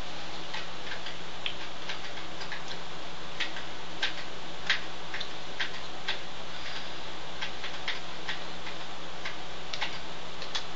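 Steady hiss and a low hum, with light, sharp clicks at irregular spacing, about one or two a second.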